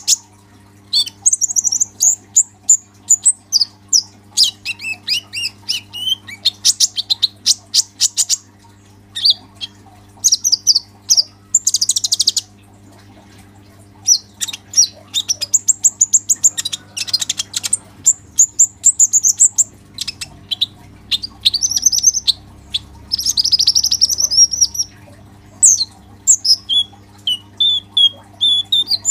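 Caged male kolibri ninja sunbird singing without letup: rapid, sharp high chirps and fast trills with only brief pauses. A steady low hum runs underneath.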